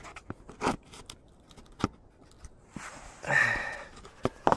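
Close handling noise as a camera is set down and adjusted on a gravel drive: a scattering of small clicks and knocks, with a brief rustle a little over three seconds in.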